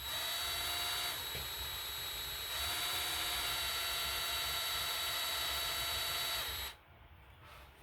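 Craftsman electric drill running in reverse, driving a small left-hand bit into a broken bolt in an engine block: a steady motor whine that eases slightly about a second in, picks back up after about two and a half seconds, and stops near the end.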